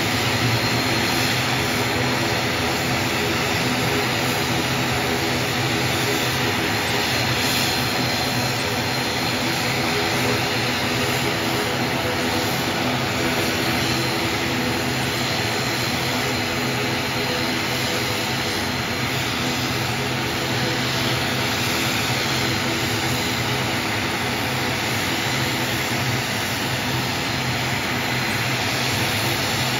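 ATR 72 twin-turboprop airliner taxiing, both turboprop engines running steadily at low power. It is a constant hum of stacked propeller tones with a faint high whine and hiss above.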